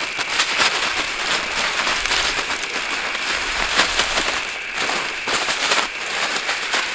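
A plastic zip-lock bag crinkling and rustling as it is shaken, with breadcrumbs and small fish fillets tumbling inside to coat them.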